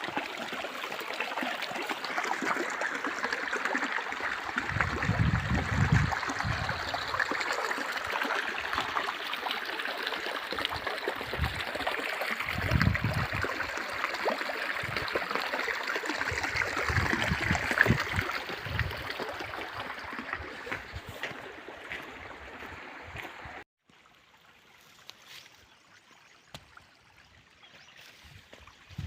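Running water of a stream, a steady rushing hiss with a few low rumbles, that cuts off abruptly about three-quarters of the way through, leaving a much quieter background.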